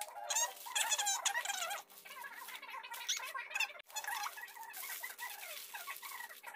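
Aluminium foil crinkling under the hands as a foil-wrapped fish parcel is pressed and folded, with a few sharp crackles, all under a busy chatter of quick squeaky chirps and warbles.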